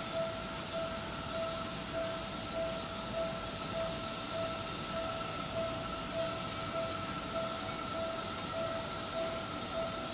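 Japanese level-crossing warning bell ringing at an even beat, a bit under two rings a second, over a steady high hiss and the low running of a Seibu 30000-series electric train moving slowly over the crossing.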